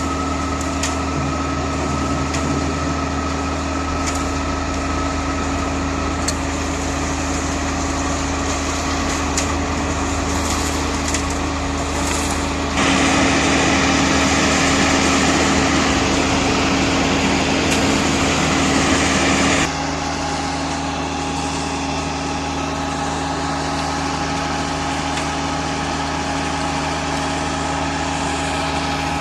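Diesel engine of a truck-mounted concrete mixer pump running steadily. A louder rushing noise joins it for about seven seconds midway, then drops away.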